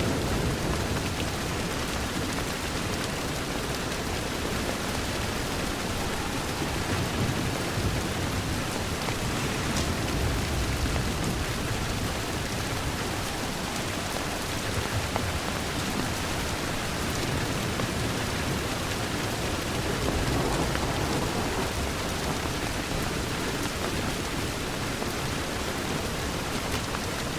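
Steady rain falling on a window, a dense even hiss with a low rumble underneath that swells slightly a few times.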